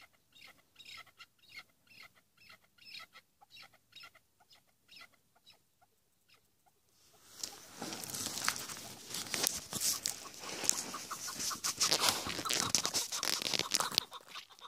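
Chukar partridge calling a quick run of short clucking notes, two or three a second. About seven seconds in, loud rustling and crackling of branches close to the microphone takes over.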